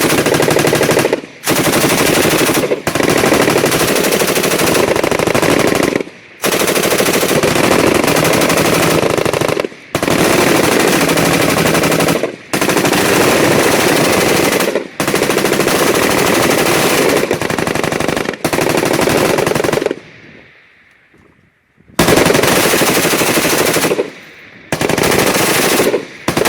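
FN Minimi belt-fed machine gun firing on full auto in long sustained bursts with brief breaks between them, about ten bursts in all. The firing stops for about two seconds near the end, then resumes.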